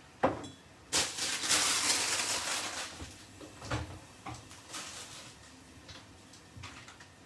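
Washing up at a kitchen sink: a knock, a rush of tap water for about two seconds, then several separate clunks of dishes and cupboard doors.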